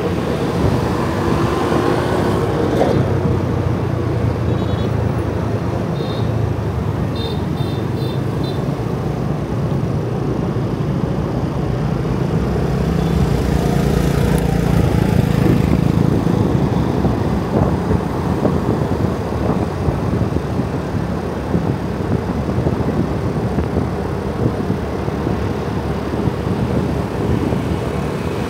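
A motorbike's engine runs steadily under way in road traffic, with a low rumble and noise that swell for a few seconds around the middle as it picks up speed. A few short high beeps sound about five to eight seconds in.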